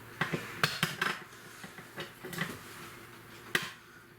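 Sharp plastic clicks and knocks from a 12-volt socket part being pushed and worked against its plastic mounting plate: several in the first second, a softer one about two and a half seconds in, and a louder one near the end. The part will not seat because of an edge on it.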